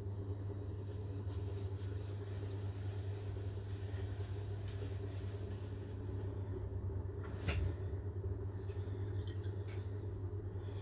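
Electric potter's wheel motor humming steadily while a large charger is thrown, with a single sharp knock about seven and a half seconds in.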